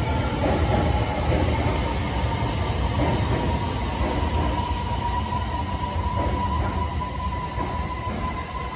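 Beijing Subway Line 8 train pulling out behind the platform screen doors: a low rumble with a traction-motor whine that rises slowly in pitch as the train accelerates, the sound easing off towards the end.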